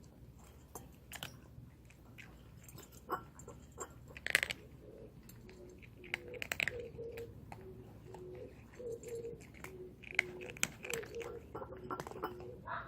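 Cats chewing and crunching food, with irregular sharp crunches and clicks of eating.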